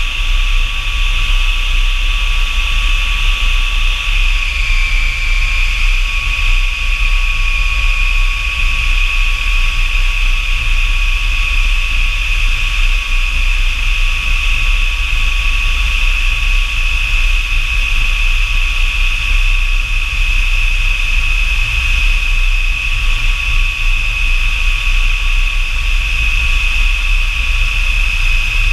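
North American F-100 Super Sabre's J57 turbojet running steadily, a high whine over a low rumble, its pitch dipping slightly about five seconds in.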